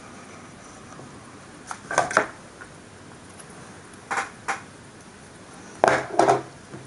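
Light clicks and taps from a cardboard model building and a glue tube being handled and set down on a tabletop. They come in three small clusters of two or three taps, the loudest near the end.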